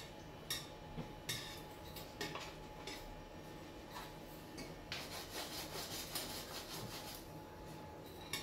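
Metal utensil scraping and tapping lightly against a stainless-steel frying pan as garlic cloves are moved around in heating olive oil, with scattered small clicks.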